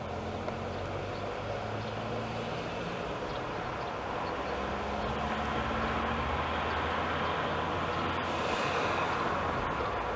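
Jet engines of a Boeing 737-800 on final approach: a steady rumble with a rushing hiss that grows louder from about halfway through as the airliner comes closer.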